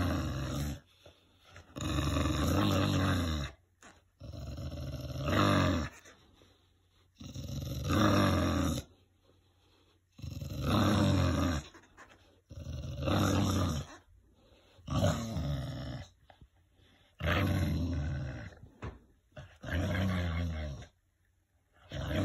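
English bulldog growling deep and rumbling in repeated bursts of a second or so, about every two to three seconds, while tugging on a toy. It is play growling, not aggression.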